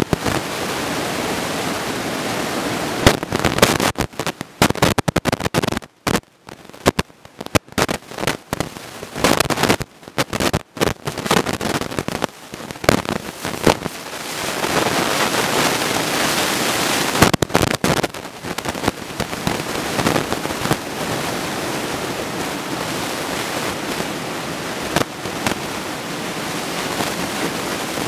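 Steady roar of ocean surf breaking. From about three to thirteen seconds in, the sound turns choppy, cutting in and out with short silent gaps, before settling back into a steady roar.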